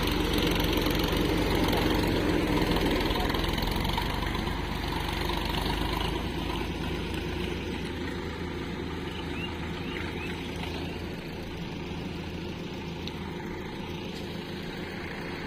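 Sonalika tractor's diesel engine running steadily, then gradually fading over the second half as it pulls away with a trolley loaded with mud.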